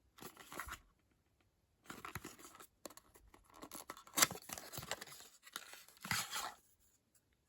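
Rustling handling noise from a beauty product's packaging, in four bursts, the loudest about four seconds in.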